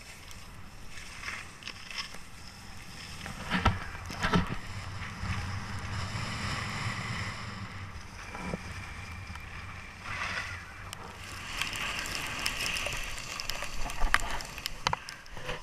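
Skiboards sliding and scraping over packed snow, with wind rushing on the microphone; two sharp knocks about four seconds in.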